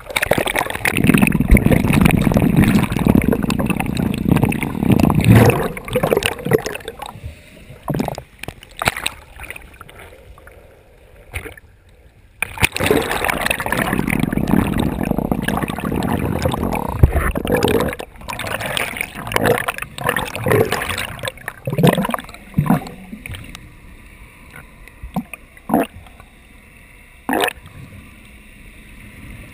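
Sea water rushing and bubbling around a camera as snorkelers swim and dive, heard muffled underwater. There are two long loud turbulent stretches, near the start and about halfway, with quieter spells between and after, broken by short knocks and bubble pops.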